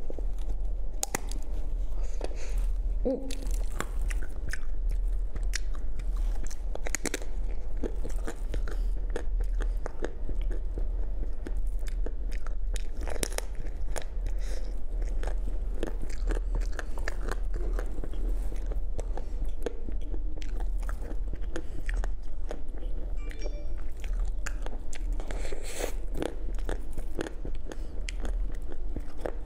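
Close-miked biting and chewing of a filled pine-cone-shaped chocolate treat: many crisp crunches and clicks as the shell breaks, mixed with chewing of the soft filling, over a steady low hum.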